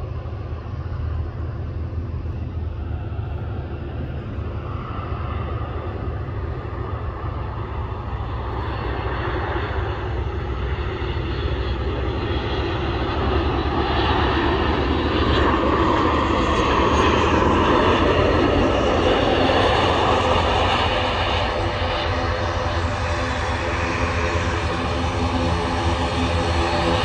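Ryanair Boeing 737 jetliner on approach and landing, its jet engines' rushing noise and whine growing louder as it comes close. The sound is loudest about two-thirds of the way through, eases a little, then rises again near the end.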